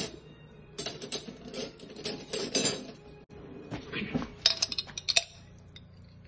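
Metal cutlery clinking as a spoon is picked out of a kitchen drawer, then a metal spoon clicking and scraping against a glass jar of fermented bean curd in a quick run of sharp clinks.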